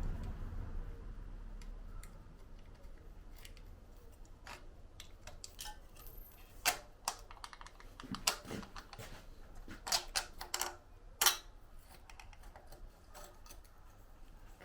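Scattered light clicks and taps of hand tools and small metal parts being worked and handled, with a cluster of sharper clicks in the second half.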